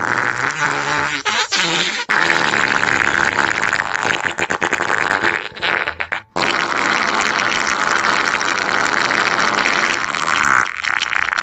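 Long, loud farting sound effect: a continuous noisy blast that breaks off only briefly about two and six seconds in.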